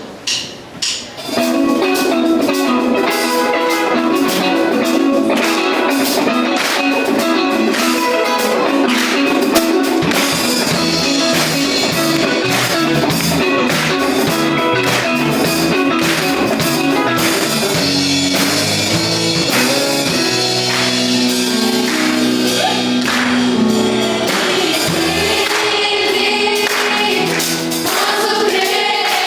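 Live gospel band and vocal group playing an upbeat worship song: a few hits lead in, then the full band comes in about a second in and plays on steadily with group singing and tambourine.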